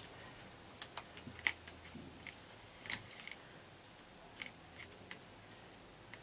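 Light, irregular clicks and taps of small plastic and metal parts being handled as an electric drill is taken apart near its carbon brushes and brush holder.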